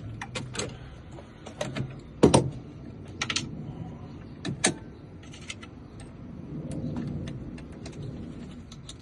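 Keys and small tools being handled: a scattered series of light clicks and knocks, the loudest just over two seconds in. A soft low rumble swells up about seven seconds in.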